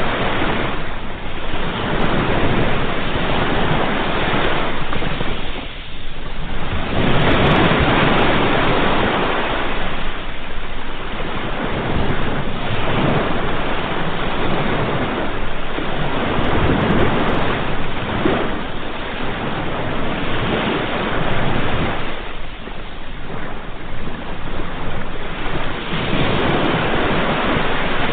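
Sea waves breaking and washing on the shore, a continuous surf that swells and ebbs every few seconds.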